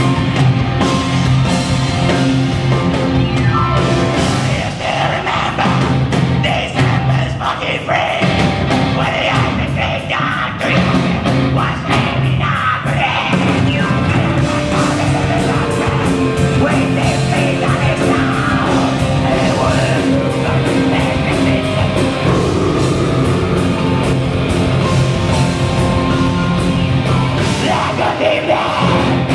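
Live heavy metal band playing: distorted electric guitars, bass and drum kit, with a male singer's vocals over them.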